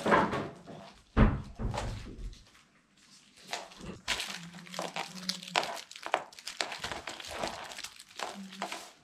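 A Pomeranian playing with a crinkly plush toy on a wooden floor: knocks and scrabbling as the dog pounces and tugs, with the toy crinkling, and a loud thump about a second in.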